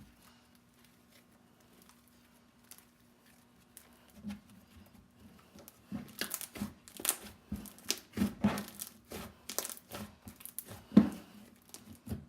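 Hands squishing and stretching a cloud-cream-textured slime with foam beads, making irregular sticky clicks and crackles that start about four seconds in and come thicker from about six seconds. Before that it is nearly silent.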